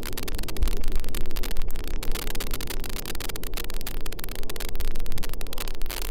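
Steady hiss with constant crackling from water lapping against a camera held at the surface of a swimming pool.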